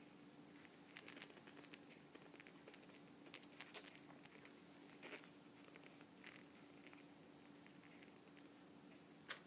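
Near silence with a steady faint hum and scattered faint clicks and scratches, the sharpest tick just before the end.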